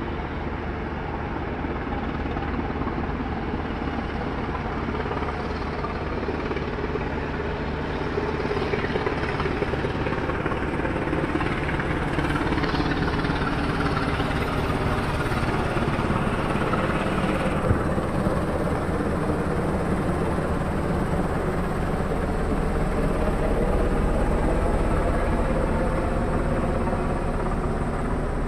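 Black Hawk-type military helicopter flying overhead in a circle: a steady rotor and turbine sound that slowly shifts in pitch, gets louder several seconds in, and is loudest near the end.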